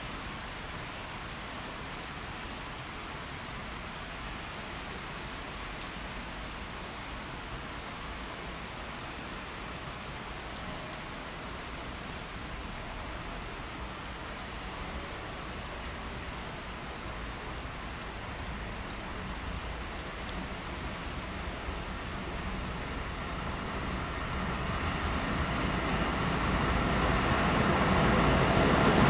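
A steady hiss of rain-like noise, then from a little after two-thirds of the way through, an approaching freight train hauled by a Railpool class 186 electric locomotive, its rumble growing steadily louder.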